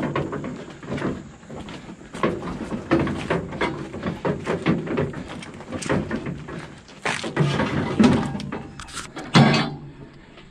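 Hand-pulled junkyard wagon rattling and clattering over rough dirt and gravel, with a run of irregular knocks and bumps.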